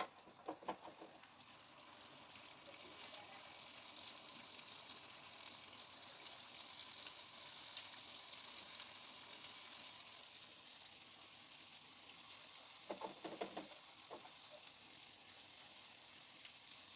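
Food frying in hot oil: a faint, steady sizzle that builds in over the first couple of seconds. A few light clatters come near the start and again about thirteen seconds in.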